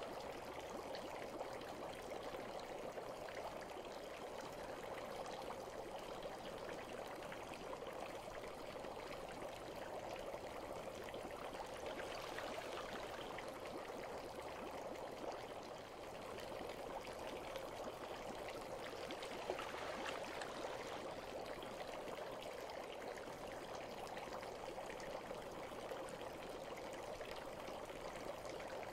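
Bath water ambience: a steady, even sound of running or trickling water, with faint fine crackles scattered through it.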